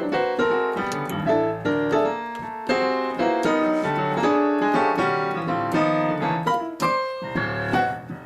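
Piano playing a jaunty jazz vamp: repeated chords struck in a bouncy, steady rhythm.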